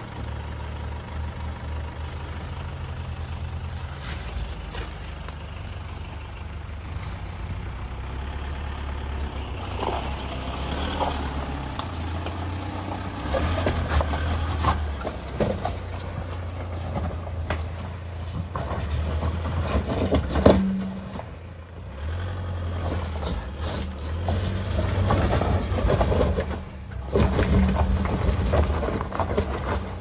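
Off-road 4x4's engine running at low revs, rising and falling as it crawls up a rutted, rocky mud track. Scattered knocks and rattles come from the bodywork over the bumps, with one loud bang about twenty seconds in.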